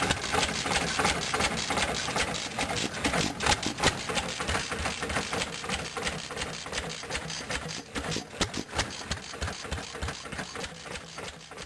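McCormick-Deering Model M single-cylinder hit-and-miss engine running, its exhaust popping at irregular spacing through a home-made perforated pipe muffler amid steady mechanical clatter. The sound fades out toward the end.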